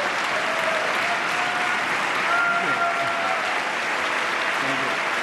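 Large crowd applauding steadily, a standing ovation of many hands clapping at once.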